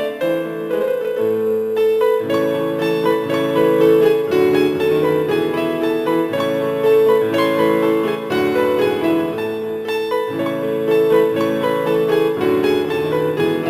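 Background music led by piano, with a bass line coming in about a second in.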